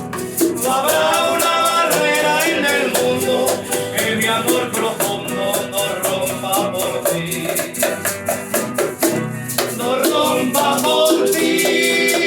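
Latin band music with guitar and maracas, the maracas shaken on a steady beat of about three strokes a second under a moving melody line.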